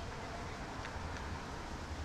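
Steady low rumble of distant vehicles under a haze of background noise, with two faint short high squeaks about a second in.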